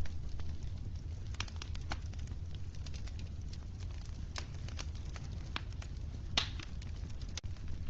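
Wood fire crackling: irregular sharp pops and snaps over a steady low rumble, with one louder pop a little after six seconds in.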